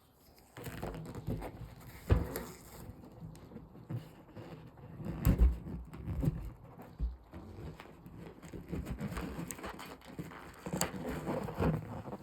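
Rubber balloons being handled and popped: continuous irregular rubbing and crackling, with a few sharp pops standing out, the loudest about two and five seconds in.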